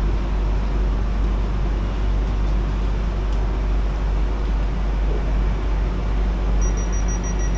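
Airport Rail Link electric train running, heard from inside the carriage: a steady deep rumble with rail and running noise. A thin, steady high electronic tone starts near the end.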